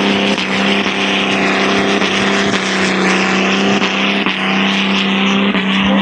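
Off-road 4x4's engine held at high, steady revs, with a loud rushing noise over it.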